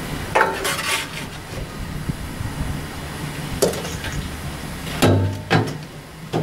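Shovel scraping and clanking against the steel inside a steam locomotive's open smokebox as the ash is dug out during disposal: a handful of sharp metallic knocks and scrapes, the loudest two about five seconds in.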